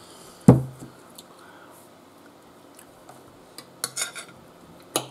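A sharp knock about half a second in, then light clinks of cutlery on plates. About four seconds in, a canister of herb salt is shaken over food in a few quick, hissy rattles.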